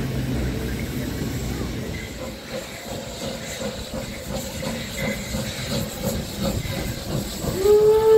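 Steam locomotive hissing steam, then its steam whistle sounds near the end, sliding briefly up to a loud, steady pitch.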